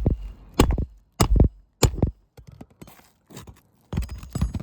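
Hammer driving a roofing nail through a snake tool under an asphalt shingle: sharp strikes about every half second, some lighter taps, then a quicker run of strikes near the end. The nail will not seat flush because of the tool's under lip.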